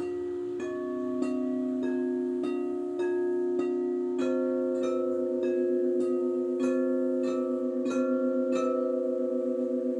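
Crystal singing bowls struck with mallets in a steady pulse, a little under two strikes a second, playing a melody of ringing notes that overlap and sustain. From about the middle on, the low tones waver with a beating wobble as several bowls ring together.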